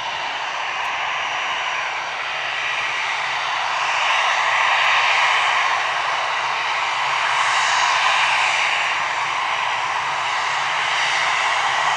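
Jet engine noise from an easyJet Airbus airliner: a steady rushing noise that swells a little a few times and grows louder near the end.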